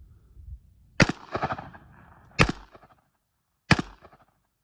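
Three rifle shots of 7.62x39 rounds, about a second and a half apart, each followed by a rolling echo.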